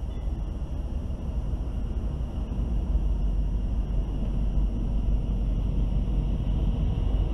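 Diesel locomotives of an approaching freight train, a GE C40-8W leading with an EMD SD60E behind, running with a low rumble that gets louder about three seconds in as the train nears.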